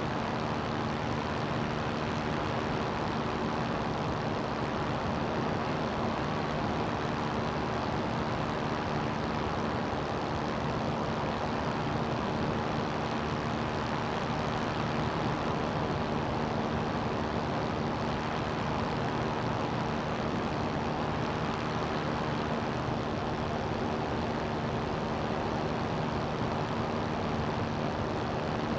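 CGS Hawk ultralight's engine and propeller running steadily in flight at an unchanging pitch, over a constant rush of wind.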